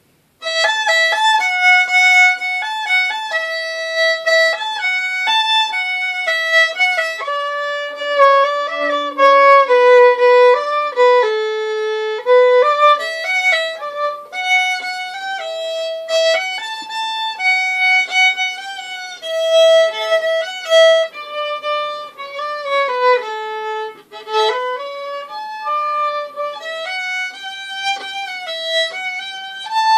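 Solo violin, bowed, playing an improvised, unaccompanied melody of single held notes that move up and down, starting about half a second in.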